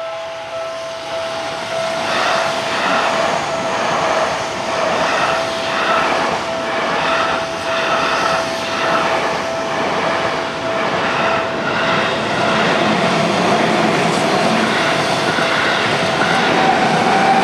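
Seibu 30000 series electric train passing close by, its wheels clattering in a steady rhythm over the rail joints. The sound swells about two seconds in as the cars come alongside, with a steady high tone held underneath.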